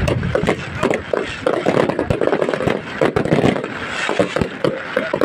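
Aerial fireworks display bursting: a rapid, unbroken string of bangs and crackles over a low rumble.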